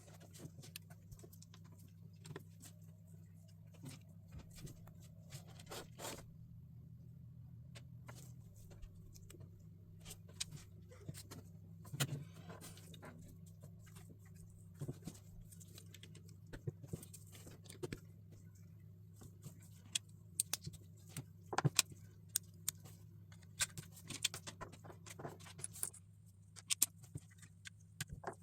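Plastic LEGO pieces clicking and rattling as they are handled, with scattered sharp clicks over a steady low hum; the clicks come thicker in the last third.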